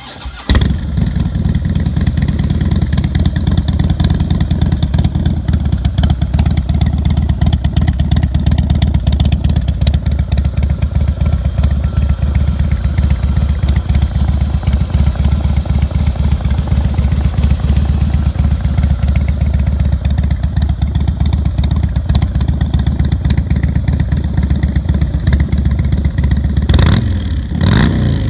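Screamin' Eagle Twin Cam 110B air-cooled V-twin of a 2016 Harley-Davidson Fat Boy S starting and then idling steadily and loudly through a BSL Two-in-One-and-Two exhaust. Near the end the engine speed rises and falls.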